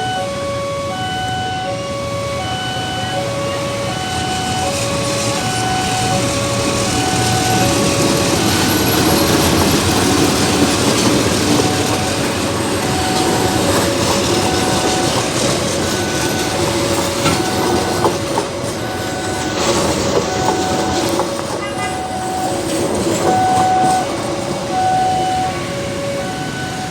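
Electronic level-crossing warning signal sounding short alternating two-pitch tones about once a second, while a train passes over the crossing, its rolling noise swelling up in the middle and easing off near the end.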